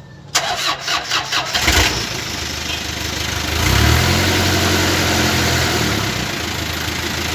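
Car engine cranked by its starter motor in a quick run of about five or six turns, catching after about a second and a half. It then revs up briefly near the middle and settles to a steady idle.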